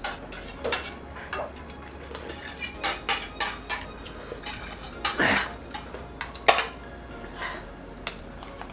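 Steel spoons clinking and scraping against stainless steel plates as two people eat fast, in irregular strokes. The longest, loudest sound comes about five seconds in, and a sharp clink about a second and a half later.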